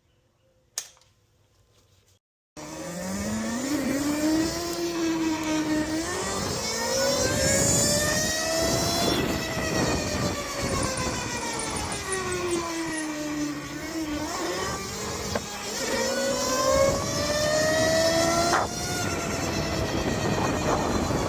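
Electro & Co. RTR electric minibike under way on a test ride with a newly fitted thick chain. Its motor and chain-drive whine rises as it speeds up, falls as it slows, climbs again, then drops sharply near the end, over wind and road noise. It starts a couple of seconds in, after a brief quiet with one click.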